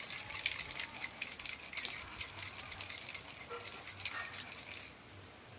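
Ice cubes and liquid rattling and sloshing inside a glass capped with a steel tumbler as it is shaken hard by hand, a quick irregular clatter that dies away near the end.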